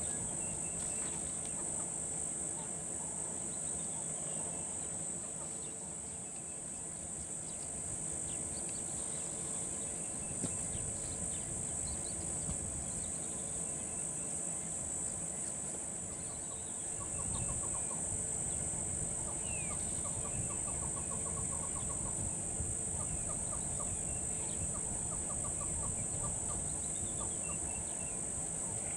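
A steady, high-pitched insect chorus with scattered bird chirps, and a fast run of repeated bird notes just past the middle.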